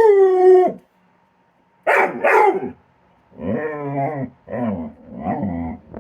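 Dog's play vocalizations: a long howling call cuts off under a second in, then after a pause come two short yips, then a run of shorter, lower, wavering howls.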